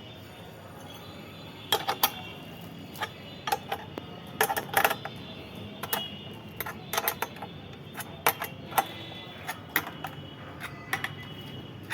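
Sharp metallic clicks and clinks of a wrench working on nuts and bolts, coming irregularly, singly and in quick pairs, throughout.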